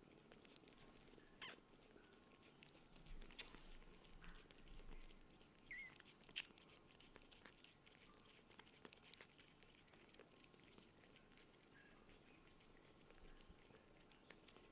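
Faint, soft licking and small clicking sounds of a Scottish Fold mother cat grooming her newborn kitten, with a brief faint squeak about six seconds in.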